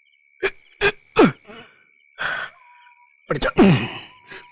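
Men grunting, gasping and sighing in short breathy bursts as they pull themselves up onto a wall, with a steady high-pitched tone in the background.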